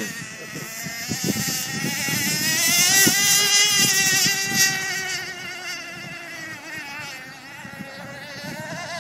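Radio-controlled race boat's motor running flat out on the water, a high whine that grows louder as the boat comes near, then fades as it runs off and returns near the end.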